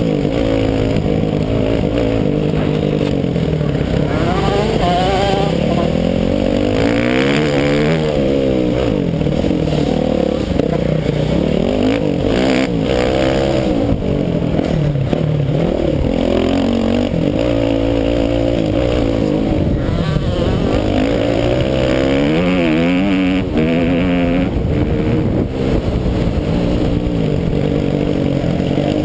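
Motocross bike engine heard from onboard, revving up and down over and over as the rider accelerates, shifts and backs off around the track.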